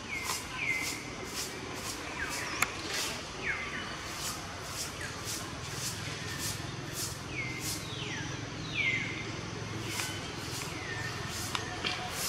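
Outdoor animal calls: a high, even chirp repeating about twice a second, with short whistled calls that slide downward every second or so, over a low steady rumble.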